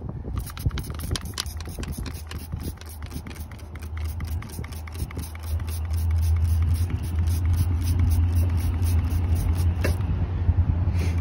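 Hand trigger sprayer pumped rapidly, several quick squirts a second, wetting a newly installed gas-line fitting with leak-detector solution to check it for leaks. A steady low rumble runs underneath, growing louder about halfway through.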